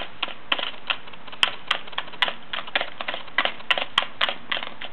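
Wild turkeys pecking feed from small plastic tubs: beaks striking the plastic and the grain in quick, irregular taps, several a second.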